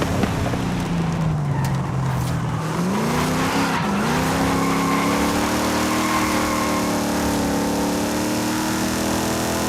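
1968 Dodge Dart Hemi Super Stock's 426 Hemi V8 running. Its note drops over the first two seconds, rises in a quick rev about three seconds in, dips briefly, then holds a steady, slowly climbing pitch.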